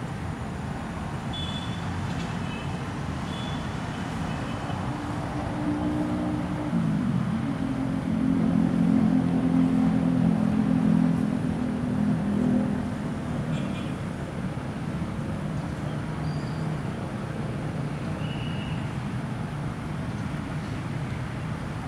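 Steady outdoor background noise with a motor vehicle's engine hum that swells about six seconds in, drops in pitch soon after, and fades out by about thirteen seconds.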